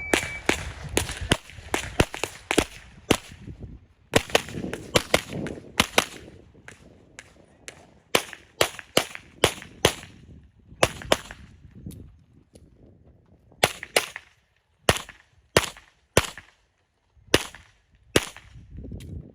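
Handgun shots fired in quick strings, many of them close together in pairs, with short pauses between the strings as in a practical pistol stage.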